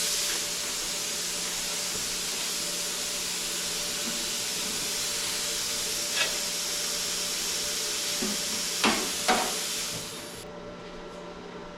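Metal-cutting torch hissing steadily while cutting through the rusted truck frame metal, with a few sharp pops near the end. The torch cuts off suddenly about ten seconds in.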